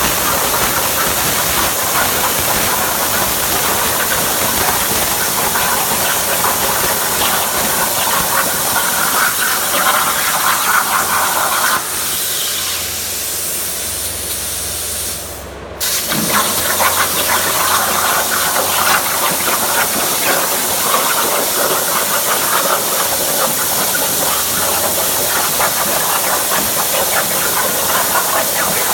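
CNC plasma cutting torch running, a loud steady hiss with crackle. About twelve seconds in, the cut stops and a quieter hiss with a low hum continues; a few seconds later the sound briefly drops away before the hissing cut starts again.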